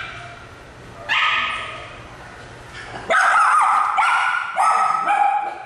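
A dog giving high-pitched yelps, one about a second in, then a quick run of them from about three seconds in.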